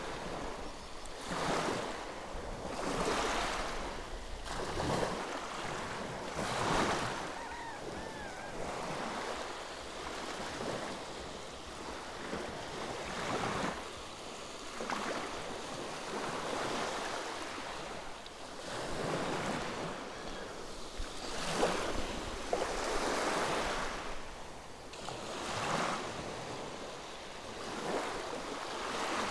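Small sea waves washing up onto the beach, surging and falling back every two seconds or so.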